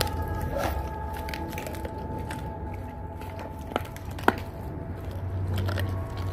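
Dogs chewing and crunching raw pig's feet and frozen tilapia, with scattered clicks of teeth on bone and two sharp cracks about four seconds in.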